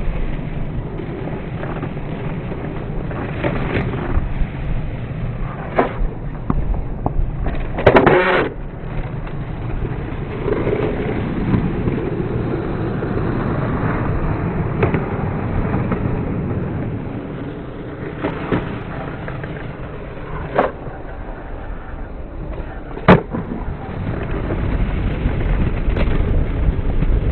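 Skateboard wheels rolling on concrete, a steady low rumble, with several sharp clacks of the board popping and landing; the loudest clack comes about eight seconds in.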